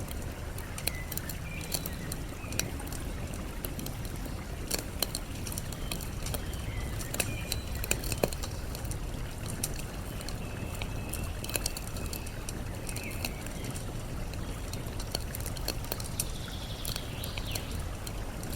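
Campfire crackling, with frequent sharp pops from the burning wood, over a steady low rush of flowing water. Faint bird chirps come and go every few seconds.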